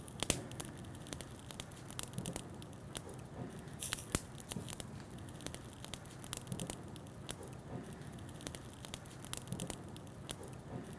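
Lemongrass pork skewers being turned one by one on a wire grill rack over a charcoal fire: scattered light clicks and crackles over a faint low hiss.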